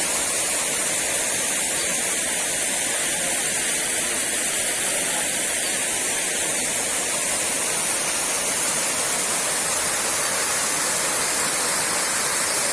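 Small waterfall's water falling and splashing, a steady, even rush of water.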